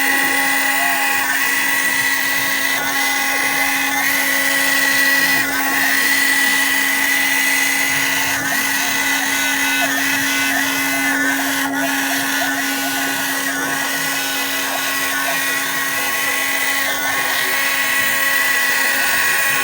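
CNC router spindle running at steady speed as it cuts plastic: a constant whine over a hiss, with a few faint ticks scattered through it.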